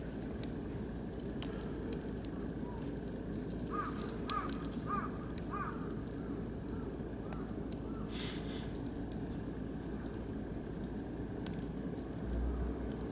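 Oak and beech wood fire burning, with a steady low rush and frequent sharp crackles and pops and a brief hiss about eight seconds in. Partway through, a bird calls about four times in quick succession, then faintly a couple more times.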